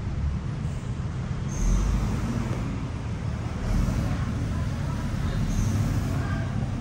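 Road traffic going by: a steady low rumble of engines and tyres that swells as vehicles pass, about two seconds in and again near four seconds.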